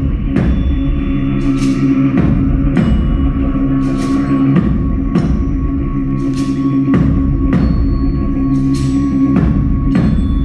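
Live band music: slow, heavy drum strikes a little more than once a second over a steady low drone.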